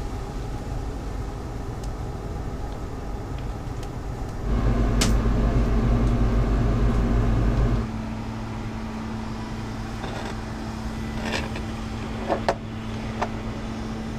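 A steady low mechanical hum, louder for a few seconds in the middle and then settling to a single steady drone. A few light clicks come near the end.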